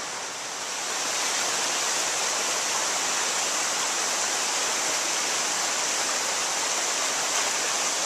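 Steady rushing of a mountain stream's flowing water, an even hiss that swells slightly about a second in and then holds level.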